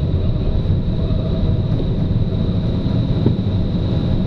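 Steady rush of air over a glider in flight, heard from inside the cockpit as an even, low rumble.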